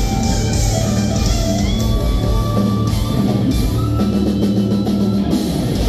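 Live rock power trio playing loud: electric guitar, electric bass and drum kit, with long held low bass notes under the crashing cymbals.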